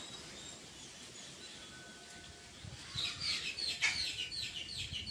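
A small songbird singing: a rapid run of short, high chirps, about five a second, starting about three seconds in. One sharp click sounds among the chirps.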